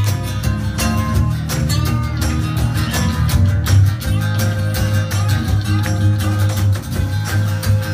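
Live guitars playing an instrumental passage together: strummed acoustic guitar chords with single notes picked over them and a steady low end.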